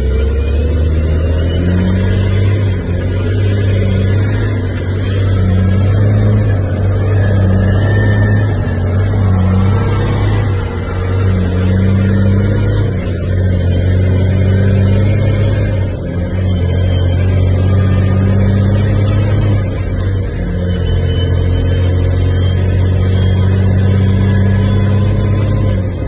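Peterbilt 379 semi truck's diesel engine pulling hard under a heavy load, heard from inside the cab as the driver works through the gears. A deep, steady drone carries a high whistle that rises and falls away again every few seconds, with short dips in the engine sound at the shifts.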